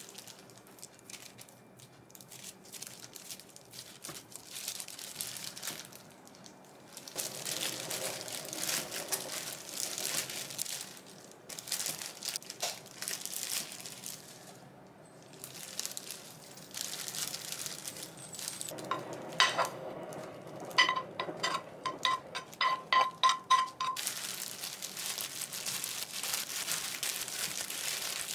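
Disposable plastic gloves crinkling and rustling as hands handle gimbap fillings and a sheet of laver on a wooden board. Around twenty seconds in comes a quick run of about a dozen light, ringing clinks.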